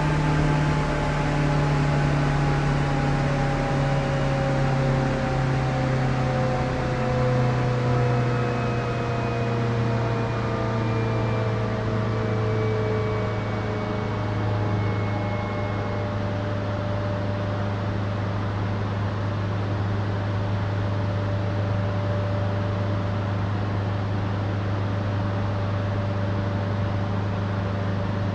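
KRL commuter electric train running, with a steady low hum under a motor whine whose tones slowly fall in pitch over the first half as the train slows, then hold at a steady pitch.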